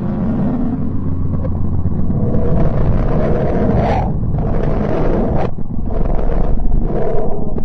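Steady low rumbling drone with some held tones. From about three seconds in, bands of hissing noise cut in and out abruptly several times.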